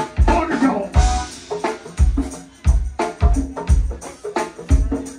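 Live band playing through a PA: drum kit, electric guitar and keyboards, driven by a steady beat of low kick-drum thumps.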